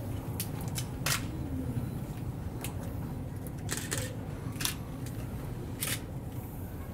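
Sharp single clicks at irregular intervals, about eight in all, some in quick pairs, over a steady low rumble.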